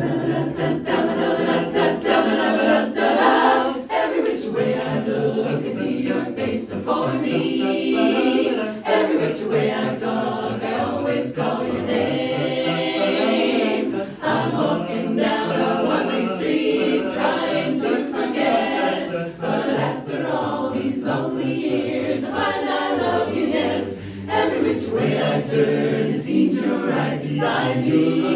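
Mixed-voice barbershop chorus, men and women together, singing a cappella in close harmony. The singing comes in loudly right at the start.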